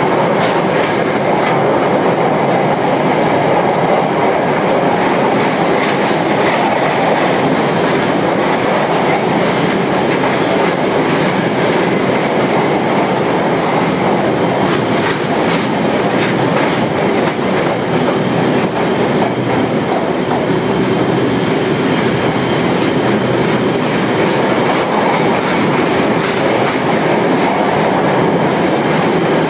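Passenger train running through a tunnel, heard from inside the carriage: a steady, loud, unbroken noise of wheels on the rails.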